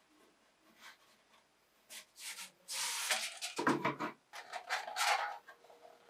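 Rolled paper poster being pulled from a cardboard tube and unrolled: rustling and crinkling paper for about two and a half seconds, starting roughly halfway in, with a soft knock partway through.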